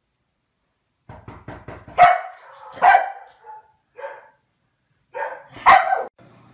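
Komondor barking five times in uneven succession, the first, second and last barks the loudest. A quick run of light taps comes just before the first bark.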